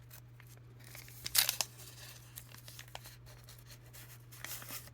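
Wrapper of a 1981 Topps stickers pack being torn open and crinkled, with a sharp rip about a second and a half in and more tearing near the end.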